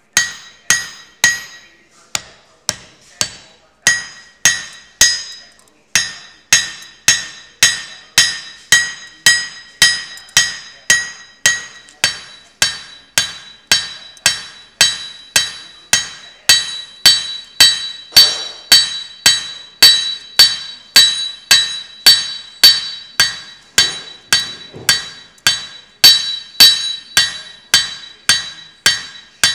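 Hand hammer striking a thin copper strip held on a steel anvil in steady blows, about two a second, each blow ringing with a clear high tone.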